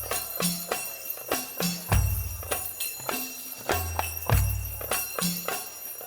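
Music with a steady beat: sharp percussion hits several times a second, a deep bass note every couple of seconds, and jingling, bell-like high percussion.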